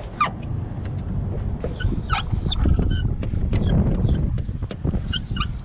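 Car-window marker squeaking in short strokes across glass, a few high-pitched squeaks through a steady low rumble; the marker leaves almost no visible line.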